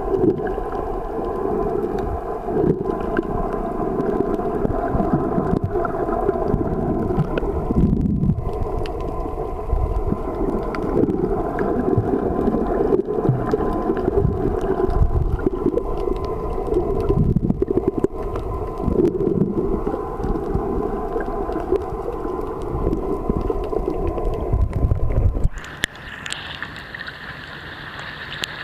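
Muffled underwater rushing and rumbling picked up by a camera held under the sea. A few seconds before the end the camera breaks the surface and the sound suddenly drops to a quieter, thinner lapping of water.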